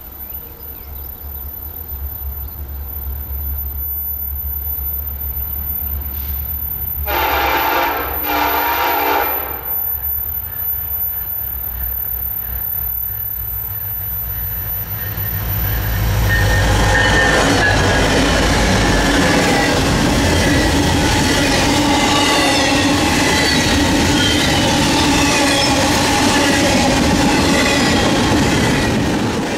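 Union Pacific EMD SD70ACe diesel locomotive approaching with a low engine rumble that grows louder. It sounds two short horn blasts about seven seconds in. From about sixteen seconds the locomotive and double-stack container cars roll past, with wheels clattering on the rails and squealing through the curve.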